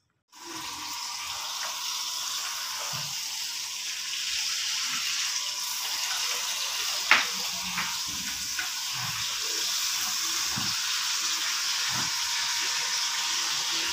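Steady, even hissing noise with a faint steady tone underneath, and one sharp click about seven seconds in.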